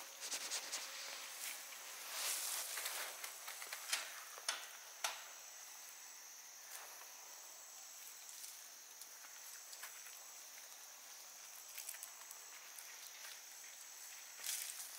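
Leafy plants rustling and snapping as they are pulled up and gathered by gloved hands, with several sharp clicks in the first five seconds. A steady high insect drone runs underneath.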